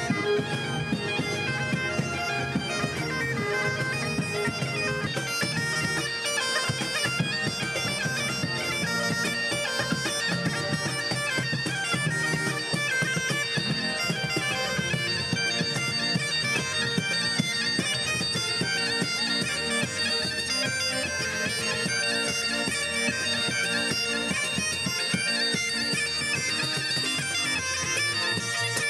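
Bagpipes playing a lively tune over a steady drone, backed by fiddle, accordion and a cajon keeping the beat, in a live folk band.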